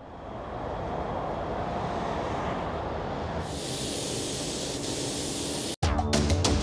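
A steady low rushing of air, joined about three and a half seconds in by the high hiss of a gravity-feed paint spray gun spraying. Both cut off suddenly near the end, and music with a steady beat starts.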